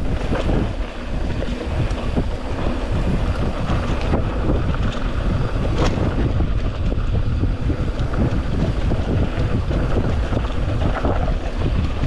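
Wind rushing over an action camera's microphone while a mountain bike rolls along a dirt trail, with steady tyre rumble and scattered knocks and rattles from the bike over bumps.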